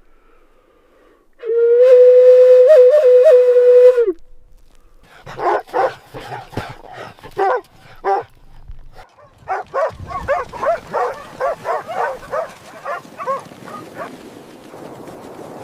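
A wolf howls once, a steady call of about two and a half seconds with a slight waver, then a run of short yips and barks follows, about two a second.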